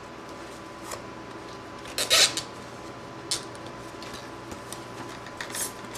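A bike twist tie being pulled through punched holes in coroplast and twisted tight to hold a servo down: a few short scratchy rustles, the loudest about two seconds in, over a steady low hum.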